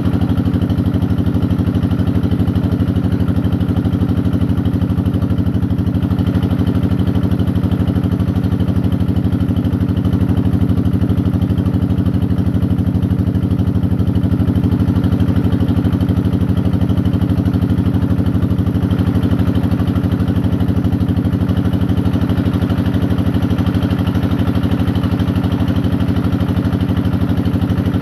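Engine of a hydraulic deep-well drilling machine running steadily at a constant speed, a loud even drone with no change in pitch.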